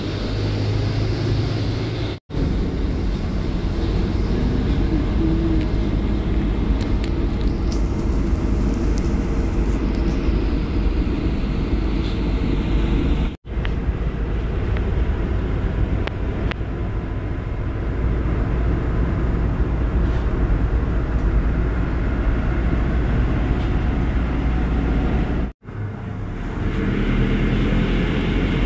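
Steady low rumble of a moving city bus heard from inside the passenger cabin. It cuts out abruptly for a moment three times.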